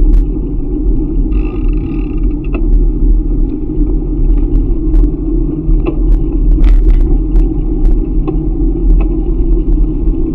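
Loud, steady wind rumble on the microphone of a moving bicycle, with scattered small clicks and rattles from the ride.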